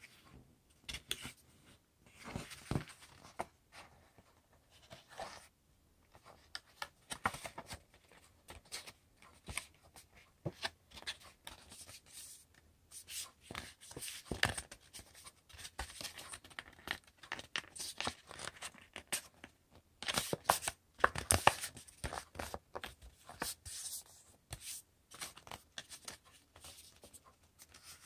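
A sheet of paper rustling and crinkling as hands fold it into a paper airplane and press the creases flat. The rustling comes in uneven bursts and is loudest about twenty seconds in.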